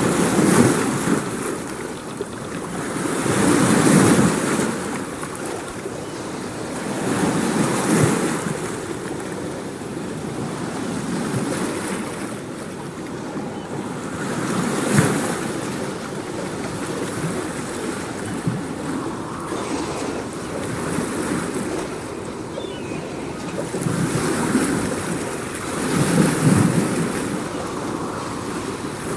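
Ocean surf: waves breaking and washing in, swelling and fading every few seconds.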